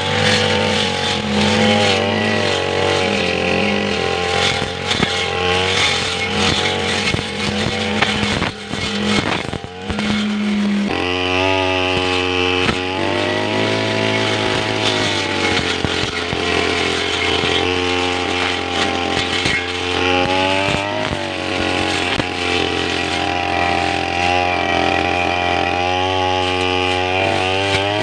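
Petrol brush cutter engine running while cutting grass, its pitch rising and falling with throttle and load. It eases off briefly about nine seconds in, then revs back up.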